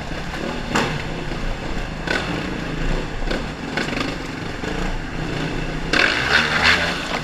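Yamaha WR450SM's single-cylinder four-stroke engine running at low, steady revs while riding over a rough, rocky dirt path, with knocks and rattles from the bumps. A louder rush of noise comes about six seconds in.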